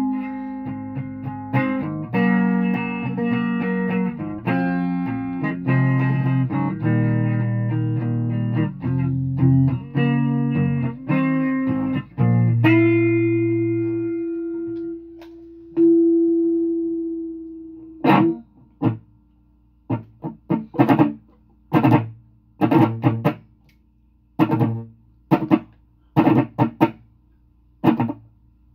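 A guitar playing chords for about twelve seconds, then a single held note left to ring out and fade, twice struck. In the last third it switches to short, choppy strums with brief gaps between them.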